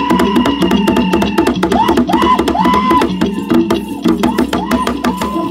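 Live Ugandan traditional music: a hand drum beaten in quick, sharp strokes, under a low repeating melody and a higher line that slides up and down in short arcs.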